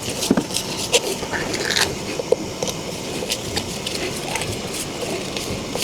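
Irregular clicks, knocks and scraping from hands and tools working on an electric scooter's wheel and tire.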